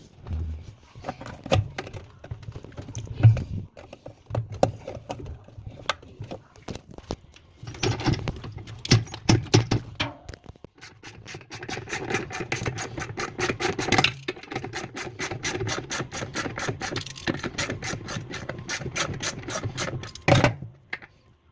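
Hand-tool and part noises while a top-loading washing machine is being taken apart: scattered clicks, knocks and scraping, then from about halfway a long run of fast, even clicking that stops shortly before the end.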